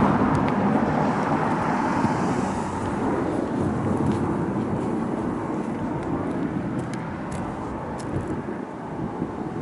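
Road vehicle noise, loudest at the start and fading slowly over several seconds, with a few faint clicks.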